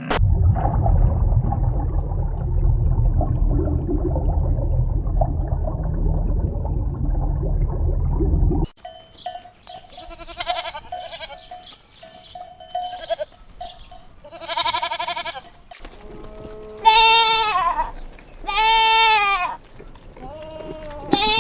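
A steady low rumbling noise that cuts off suddenly about a third of the way in, followed by goats bleating: several long, wavering calls in the second half.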